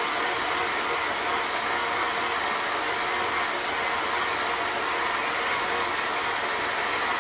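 Electric stand mixer running steadily, its flat beater turning through cream cheese and sugar in a stainless steel bowl: a loud, even motor whir.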